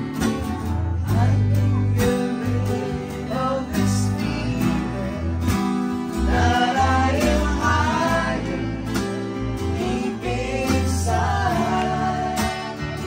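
Small acoustic band playing a song: several acoustic guitars strumming over a bass guitar line, with a wavering melody rising above them about halfway through and again near the end.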